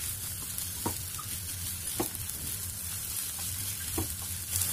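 A spatula stirring and pressing a dry potato-and-pea stuffing in a non-stick pan over high heat, with a soft sizzle and a few light knocks of the spatula against the pan.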